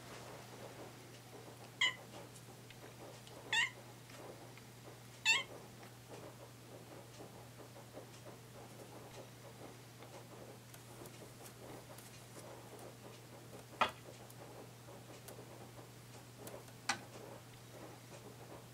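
An orange-and-white kitten meows three times, short calls a couple of seconds apart, asking to be let outside. Two sharp taps come later, with a steady low hum underneath.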